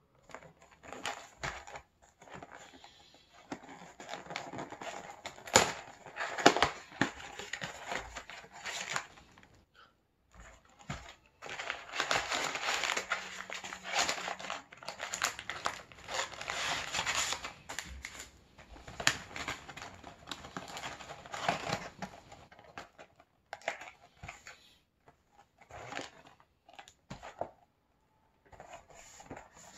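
Plastic wrapper of a frozen sorbet bar crinkling and rustling as the bar is pulled from its cardboard box and handled, in irregular bursts that grow sparser near the end.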